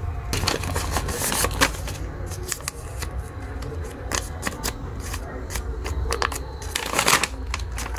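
Paper being handled: rustling, crinkling and small sharp crackles as a paper slip is unfolded and folded, with a louder crumpling swish about a second in and again near the end.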